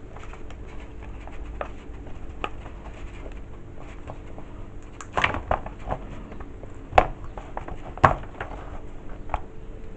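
Scattered light clicks and knocks as a painted board is worked loose and handled, with a short cluster about halfway through and two sharper knocks about a second apart after that, over a faint steady hum.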